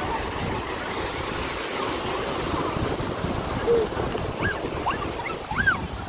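Surf on a sandy beach: waves breaking and washing far up the shore in a steady wash, with wind on the microphone. From about four seconds in, a few short distant shouts of bathers rise over it.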